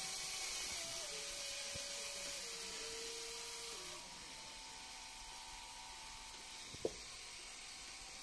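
Small LEGO electric motor turning a train turntable: a faint whine that steps down in pitch a few times, then stops about four seconds in. A single sharp click comes near the end.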